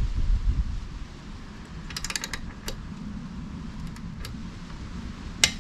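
Torque wrench clicking as the exhaust link-pipe clamp bolt is tightened to about 21 newton meters: a quick run of ratchet clicks about two seconds in, a few single clicks, and a sharp click near the end. A low rumble in the first second.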